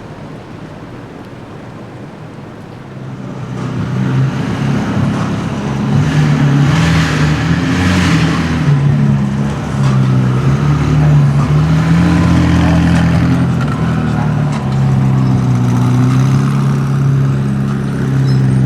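Sports car engine, faint at first, then loud from about three seconds in, its pitch rising and falling with the revs as the car is driven close by.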